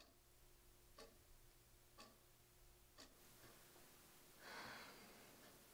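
Faint wall clock ticking once a second, four ticks, then a soft breath about four and a half seconds in, over a low steady room hum.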